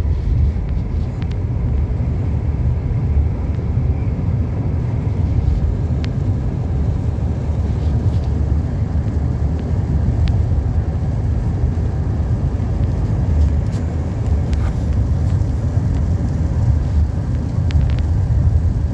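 Steady low road and engine noise inside a moving car's cabin, with a few faint ticks.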